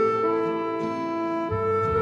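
Background instrumental music: slow, held notes, changing pitch twice.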